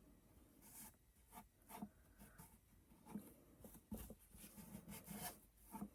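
Faint brushing and rubbing as Mod Podge glue is worked onto material on a box, with a few soft knocks from handling.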